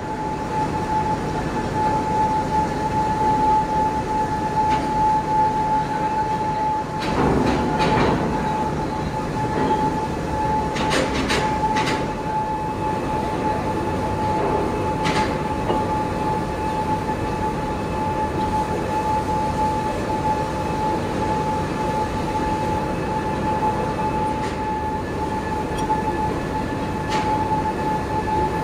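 Metal-cutting machine tool running in a machine shop: a steady high whine over continuous mechanical rumble, with a few short knocks about a quarter and two fifths of the way through.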